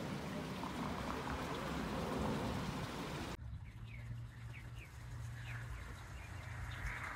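A steady rushing hiss that cuts off abruptly a little over three seconds in. After it, small birds chirp several times over a low steady hum.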